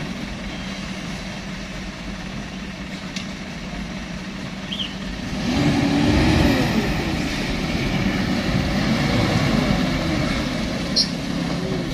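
Hino Euro 4 dump truck's diesel engine running at low speed as the truck crawls over a rutted dirt road. About halfway through, a motorcycle engine passes close by, briefly louder and rising and falling in pitch.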